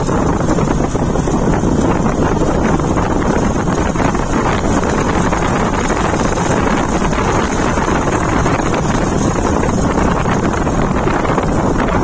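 Wind buffeting the microphone on a moving motorcycle, with the bike's engine running underneath, a steady dense rush of noise.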